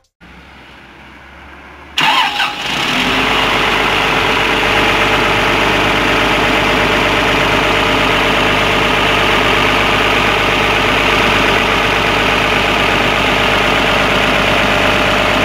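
Komatsu excavator's six-cylinder diesel engine starting about two seconds in, after a low hum, then running steadily on its newly replaced turbocharger.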